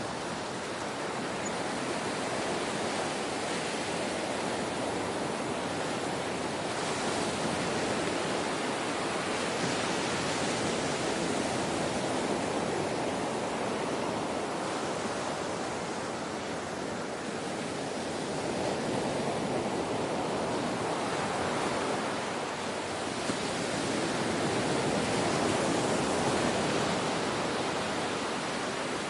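Ocean surf: a continuous wash of breaking waves that swells and eases slowly a few times.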